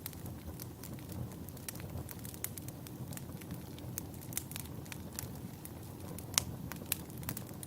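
Wood fire burning in a fireplace: a low, steady rumble of flames with frequent sharp crackles and pops, the loudest two pops about six and a half and seven seconds in.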